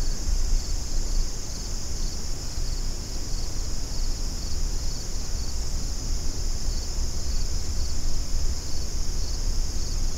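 Steady chorus of singing insects in a summer evening field: a high, even trill that never stops, over a low rumble.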